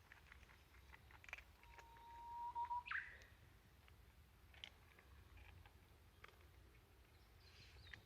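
A bird's call: one held whistled note lasting about a second, ending in a quick upward flourish, over faint background ticks.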